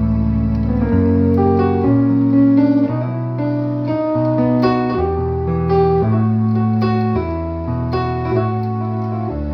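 Instrumental music: slow sustained chords over a low bass note that changes about once a second.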